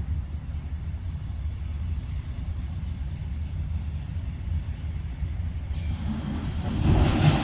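Steady low rumble from an automated pneumatic waste collection system. About six seconds in, a rushing hiss rises over it and peaks near the end.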